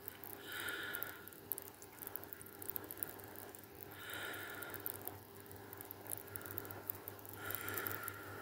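A person breathing close to the microphone: three slow breaths about three and a half seconds apart, over a faint steady hum.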